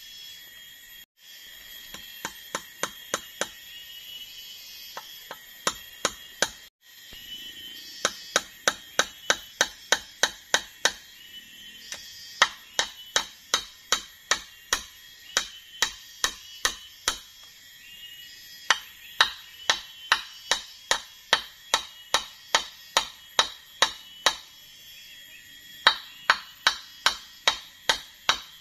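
Hammering at the joint of a wooden pole ladder: runs of sharp, evenly spaced strikes, about two to three a second, with short pauses between the runs.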